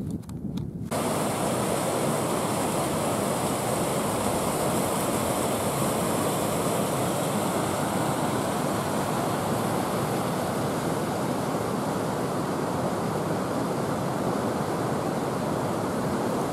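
Small mountain burn rushing over boulders: a steady, even rushing hiss that starts abruptly about a second in, after a moment of wind buffeting the microphone.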